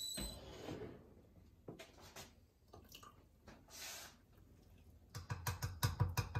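A stovetop kettle's whistle stops just after the start, then hot water is poured briefly from the kettle into a mug about four seconds in. Near the end a teaspoon clinks rapidly against a ceramic mug as the instant coffee is stirred.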